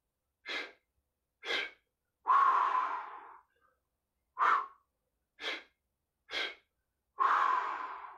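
Heavy, rhythmic breathing of a man working through kettlebell thrusters. Each rep brings a few short, sharp breaths about a second apart, then one long, hard breath. This cycle is heard twice.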